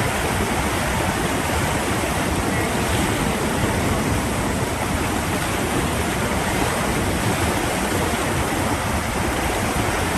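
Steady rushing water, a constant even noise with no breaks.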